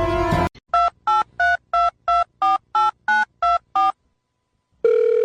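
Touch-tone phone keypad dialing: ten quick beeps, about three a second, each a pair of tones, as a number is keyed in. After a short silence a steady telephone tone starts near the end.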